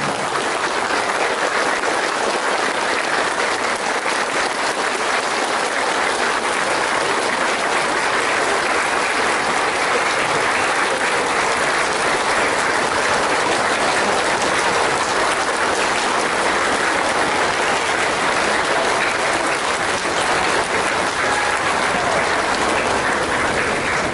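A large standing crowd applauding with steady, sustained clapping.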